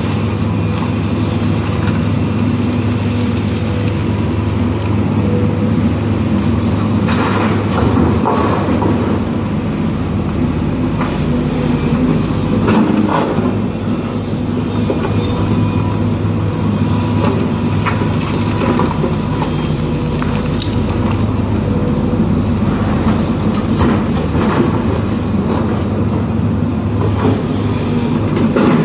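Diesel engine of a Hidromek 310 LC tracked excavator running steadily under working load, with scattered clanks and knocks as it digs and loads earth.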